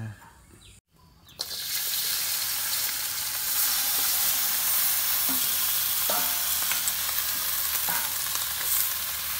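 Chinese kale with salted snakehead fish, garlic and chili sizzling in a hot wok as it is stir-fried. The sizzle starts abruptly about a second and a half in and then holds steady.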